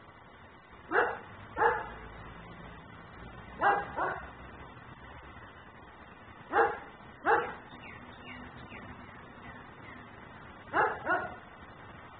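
German shepherd barking in four pairs of short, loud barks spaced a few seconds apart: the nuisance barking of a dog left outside.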